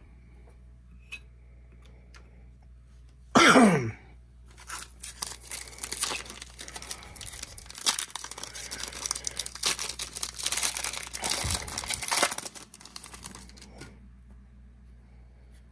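A short, loud vocal sound about three seconds in. Then a foil baseball card pack wrapper is torn open and crinkled for about nine seconds, a dense run of crackles that stops about two seconds before the end.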